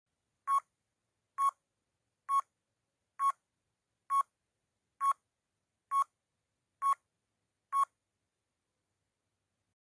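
Countdown timer sound effect: nine short, identical electronic beeps, about one a second, stopping about two seconds before the end.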